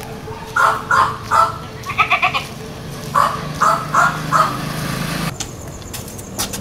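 A string of about ten short animal cries, a few every second, with one quick wavering cry near the middle, over a low steady hum.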